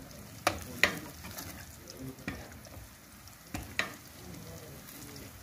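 Metal ladle scraping and knocking against a steel karahi as chopped onions, fried to a deep golden brown, are stirred over the heat, with a faint sizzle underneath. About five sharp clinks fall at uneven intervals.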